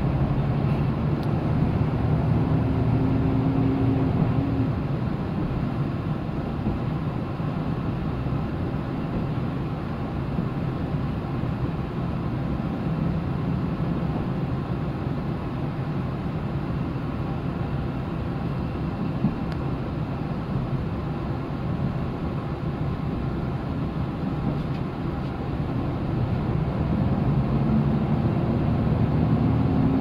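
Diesel railcar running on the line, heard from inside the passenger cabin: a steady engine drone over the rolling rumble of the wheels on the rails. The engine note stands out more strongly in the first few seconds and again near the end.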